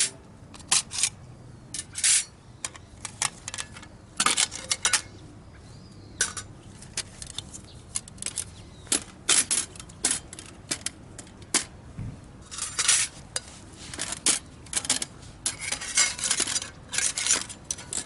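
Metal camp cookware and utensils clinking and knocking: irregular sharp clinks, some in quick clusters.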